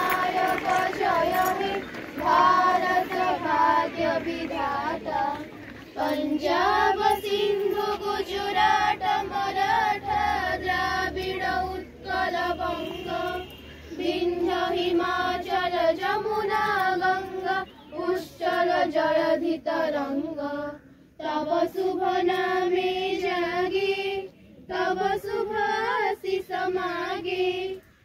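Children singing together, holding long high notes in phrases broken by short pauses every few seconds.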